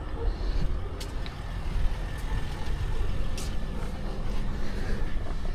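A Honda car's engine running steadily with a low, even sound, freshly back on the road after a serpentine belt replacement, with a few light clicks about a second in and past the three-second mark.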